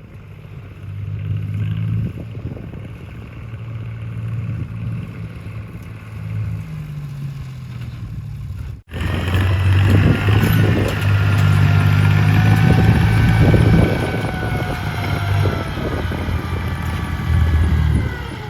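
An engine running with a low steady hum whose pitch shifts up and down. About halfway through there is an abrupt cut, and after it the engine runs louder with a high whine that glides in pitch.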